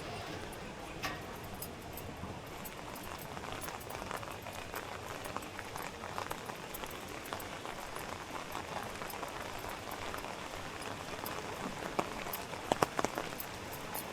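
Steady rain falling, with many small scattered drops pattering and a few louder taps near the end.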